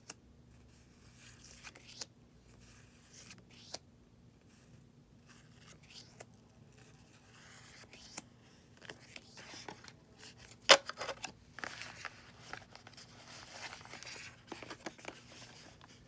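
Sticker sheets and paper being handled and shuffled by hand: soft rustling and crinkling with scattered light taps, the sharpest tap about eleven seconds in.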